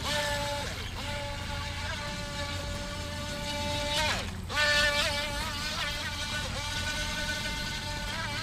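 JJRC Pentium S1 RC boat's small brushed electric motor running with a high, steady whine that dips and recovers as the throttle changes. About four seconds in, the whine drops sharply as the throttle eases off, then climbs straight back, loudest just after.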